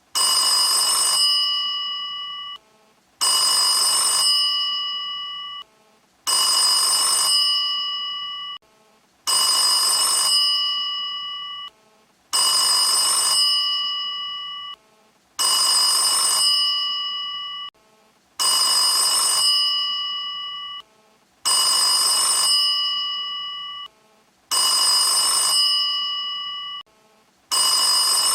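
Vintage-style phone ringtone imitating an old telephone bell: a rattling ring of about a second that fades away, repeating about every three seconds.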